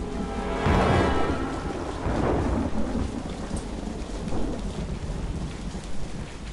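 Thunderstorm: steady rain with two peals of thunder, the first and loudest about a second in, the second about two seconds in, both rumbling away.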